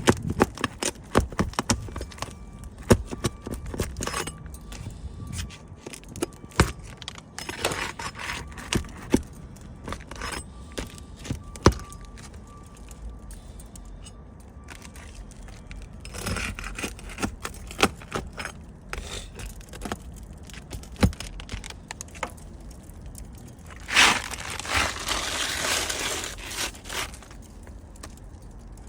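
Hand tools working on asphalt roof shingles: scraping and tearing with many sharp, irregular clicks and knocks, as a damaged shingle is pried loose and replaced. Longer stretches of scraping come about a third and about halfway through, and the loudest one near the end.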